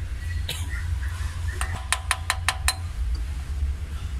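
A quick run of six or seven light, evenly spaced metallic clinks, metal tools and parts knocking together at the timing-belt end of an engine, over a steady low hum.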